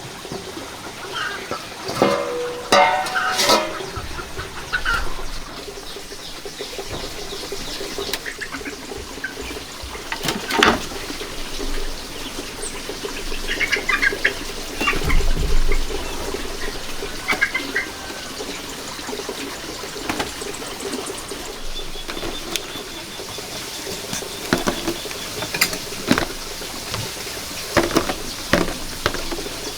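Farmyard fowl calling: a chicken gives a loud call a couple of seconds in, with short chirps from small birds here and there. Scattered knocks and rustles of handling work come through, a few of them near the end.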